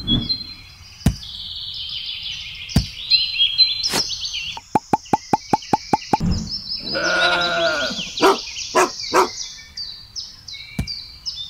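Birds chirping steadily. About five seconds in comes a quick run of clicks, and a little later a drawn-out animal call, most like a sheep or goat bleat.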